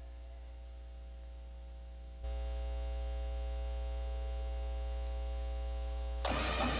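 Steady electrical mains hum and buzz on the tape's sound track, stepping louder about two seconds in. Near the end a marching band suddenly starts playing.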